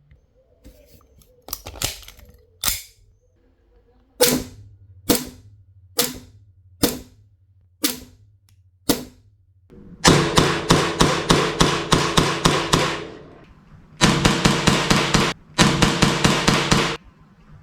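CO2-powered ASG STI 2011 Combat Master airsoft pistol firing loud single shots, at first a few irregular ones and then about one a second. In the second half come two fast strings of rapid shots.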